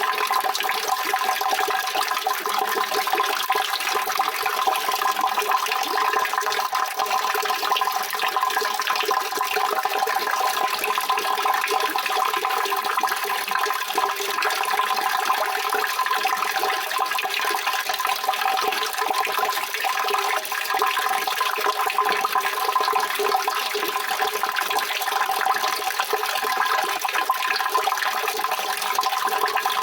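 Steady rushing water, an even unbroken wash of sound with no pauses or single splashes standing out.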